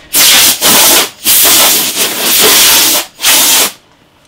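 Compressed-air blow gun on a compressor hose, blasting dust off the outside of a PC case in four loud hissing bursts. The longest burst lasts nearly two seconds, and the air cuts off about three and a half seconds in.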